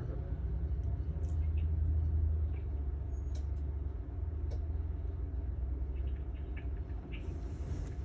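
Steady low rumble of a motor or engine, swelling a little about a second in and easing after about three seconds, with a few faint ticks scattered through it and a brief hiss near the end.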